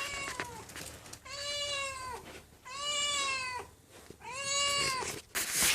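Domestic cat meowing: a faint call, then three long, drawn-out meows, a hungry cat calling its owner for food. A short noisy rustle near the end.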